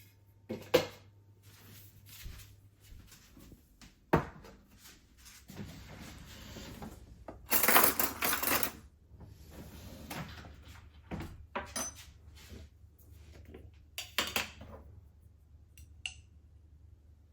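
Dishes and cutlery being handled: scattered knocks and clinks, with a louder rustling or scraping stretch of about a second near the middle and a short ringing clink near the end.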